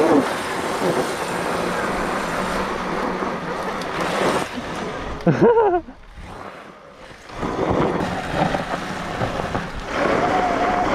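Wind rushing over the camera microphone and knobby tyres on sandy dirt as electric dirt bikes ride along. A short gliding whine about five seconds in, a brief quieter moment after it, and a steady whine near the end.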